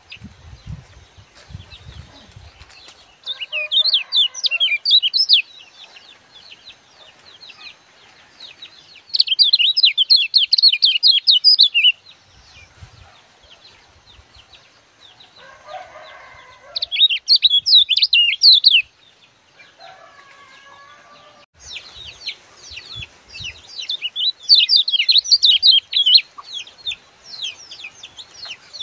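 Caged white-eye (kecial kuning) singing in several bursts of rapid, high twittering chirps, each a few seconds long, separated by short pauses. The longest run of song comes near the end.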